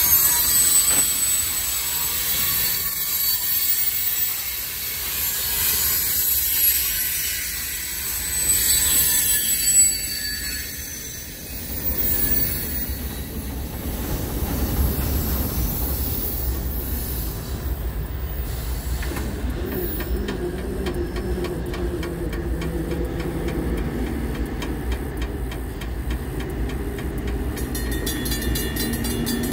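Freight train cars rolling past, steel wheels squealing on the rails with steady high-pitched tones for about the first twelve seconds. After that comes a steady low rumble as the last cars pass and the train moves off around the curve.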